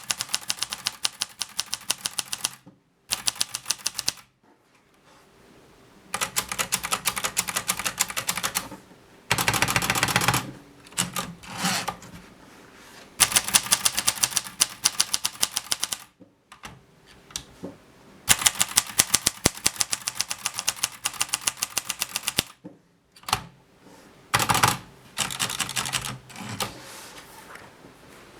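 Groma Kolibri manual portable typewriter being typed on: fast runs of sharp key strikes, several keystrokes a second, broken by short pauses.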